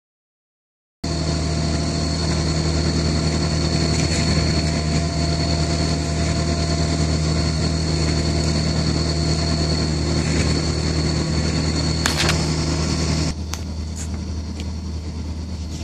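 Diesel machinery running steadily at constant speed, starting abruptly about a second in: a low engine hum with a thin high whine over it. A single short knock comes about twelve seconds in, and the sound drops somewhat in level about a second later. There are no hammer blows.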